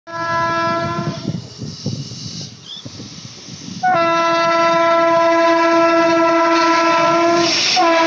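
Horn of a WAP-7 electric locomotive: a blast of about a second, then after a gap of a few seconds a long, steady blast as the train comes close. Beneath it, the train rumbles and clicks along the rails.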